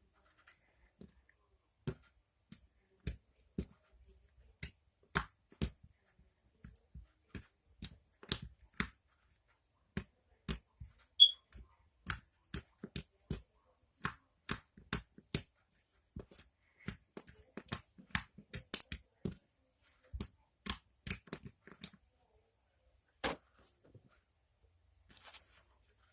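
Slime making a string of sharp clicking pops, irregular, about two a second, with brief pauses.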